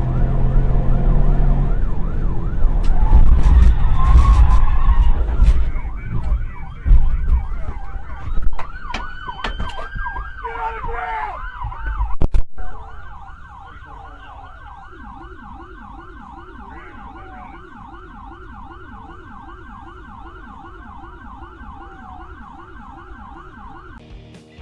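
Police siren on a fast yelp with heavy engine and road rumble from the pursuing cruiser, then several loud bangs and knocks about seven to twelve seconds in as the chased car crashes off the road. After that the rumble drops away and the siren goes on quieter, with a second, lower siren yelping alongside it.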